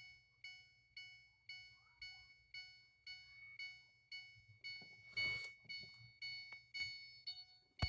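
A car's dashboard warning chime dinging over and over, about twice a second, each ding fading quickly. A brief rustle of handling comes about five seconds in.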